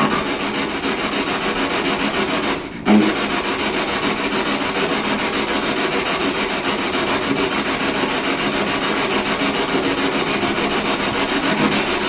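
Spirit box radio sweep: steady static hiss chopped into a fast, even stutter as it scans through stations, with a brief break about three seconds in.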